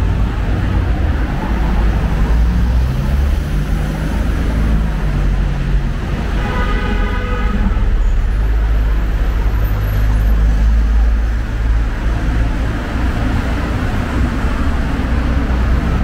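City street traffic: cars driving past on the road alongside, a steady low rumble. About six seconds in, a single pitched tone sounds for about a second and a half.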